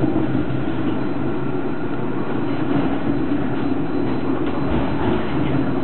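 Steady running noise inside a moving low-floor tram: wheels rumbling on the rails under a constant hum.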